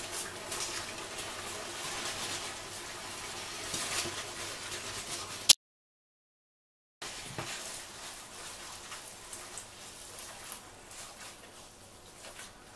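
Tomato and vegetable sauce sizzling in a hot frying pan as cooked spaghetti is tipped in and stirred through it. A sharp click about five and a half seconds in, then the sound cuts out completely for about a second and a half; it comes back softer and fades.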